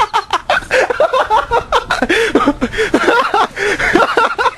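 Loud, hearty laughter in quick repeated bursts, the pitch of each burst arching up and down.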